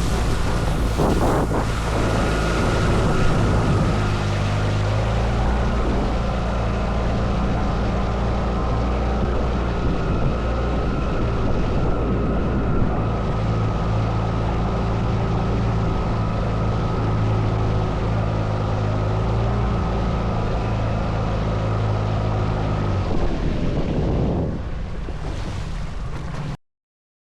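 Tohatsu 15 hp outboard motor running at a steady speed, pushing an inflatable boat through water, with wind noise on the microphone. About 23 seconds in, the engine tone drops away and leaves wind and water noise, and then the sound cuts off suddenly.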